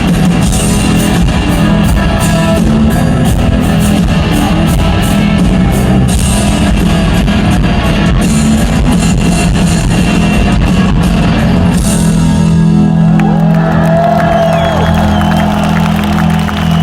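Live rock band playing an instrumental passage, with distorted electric guitars, bass and a drum kit. About twelve seconds in the drums drop out, leaving a held bass note under a guitar line that slides and bends in pitch.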